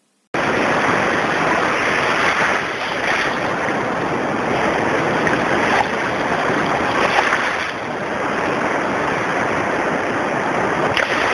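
Shallow surf washing up over sand: a steady rush of water that surges and eases every second or two, cutting in suddenly just after the start.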